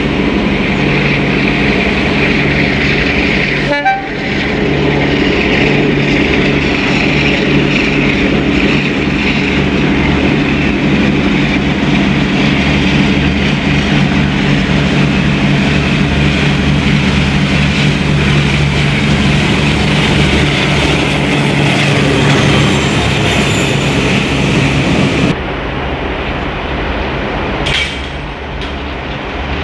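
Diesel locomotive engine working hard, a loud steady drone with evenly spaced engine tones. The sound breaks briefly about four seconds in and drops abruptly in level near the end.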